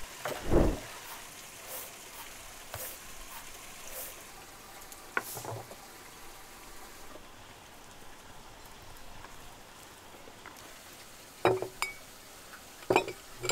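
Food-preparation handling on a table: scattered light knocks and clicks over a soft steady hiss, with a louder knock that briefly rings about eleven and a half seconds in and another near the end.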